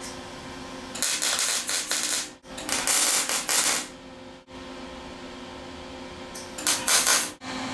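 Craftsman 120-volt MIG welder arc crackling in three bursts as tack welds go onto 18-gauge sheet steel: two of about a second and a half, then a short one near the end. A steady low hum runs between the bursts.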